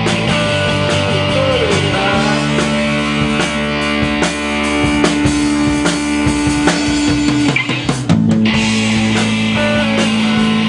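Live rock band playing amplified: electric guitars and bass holding chords over a steady drum-kit beat. The low notes change about two seconds in, and again after a brief drop about eight seconds in.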